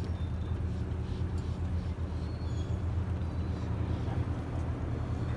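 Steady low drone of an 85-foot charter fishing boat's diesel engines running as the boat motors along.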